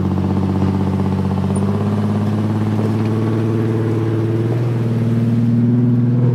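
Off-road vehicle engine running steadily during a rope tow up a steep trail climb, its pitch and loudness rising slightly near the end.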